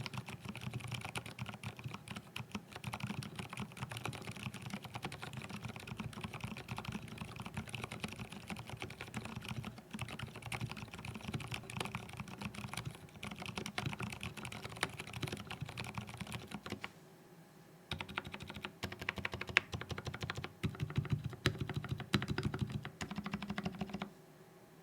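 Continuous fast typing on a Groove T mechanical keyboard with an aluminium plate and lubed Gateron Silent Brown switches. The keystrokes pause for about a second near the two-thirds mark, resume more sparsely with a few louder strokes, and stop just before the end.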